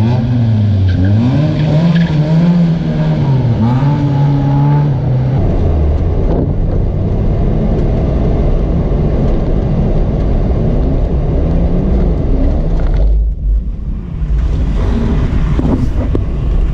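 Car engine revving up and down repeatedly for about five seconds, then a rough, steady rumble with tyre noise as the car slides.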